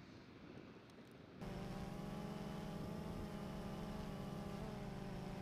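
Low wind rumble on the microphone. About one and a half seconds in, it is cut off abruptly by a steady motor hum, a deep drone with many overtones that runs on evenly.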